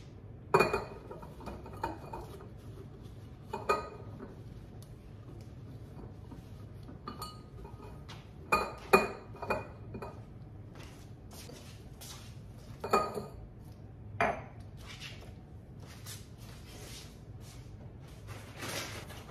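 Glass jars and their lids clinking as they are wiped, handled and set down on a granite countertop, each knock ringing briefly. Several separate clinks, with a cluster of three about eight to ten seconds in.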